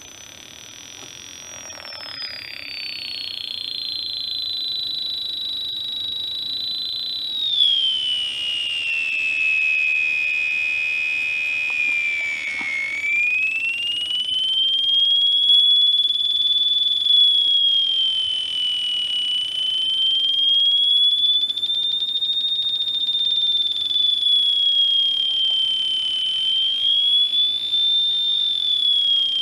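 An electronic siren tone from the kit's small speaker, driven by a 555 timer and a 4046 chip, changing as the potentiometers are turned. The high-pitched tone glides down in steps over the first dozen seconds, then rises and falls slowly in a wavering siren sweep.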